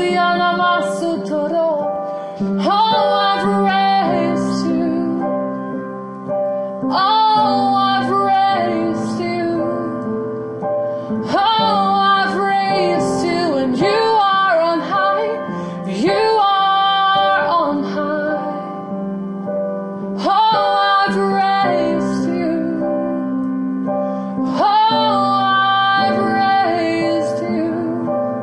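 A woman singing long wordless phrases over held piano chords, a new phrase starting about every four seconds.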